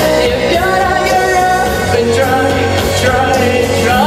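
A girl singing a pop song into a microphone over backing music, holding long notes.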